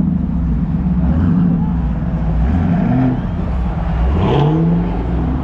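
Car engine running at a loud, steady level, its revs dipping and then climbing sharply about four seconds in before holding.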